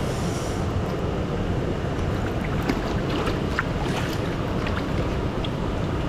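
Mountain stream water rushing steadily, a continuous even wash of sound, with a few faint clicks scattered over it.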